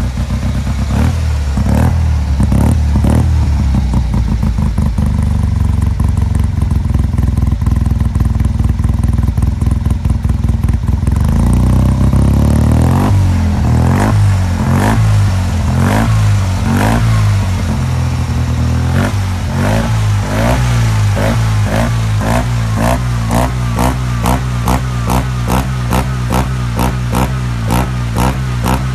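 Tuned 700cc twin-cylinder engine of a Fiat 500 running on test while its carburettor is set up. The revs rise and fall back about halfway through, then it settles into an uneven idle that pulses a few times a second.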